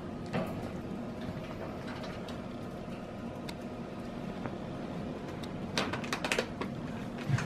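Wire pet exercise pen rattling and clicking as a kitten climbs its bars, with a quick run of metallic clicks about six seconds in and a single louder knock near the end. A steady low hum runs underneath.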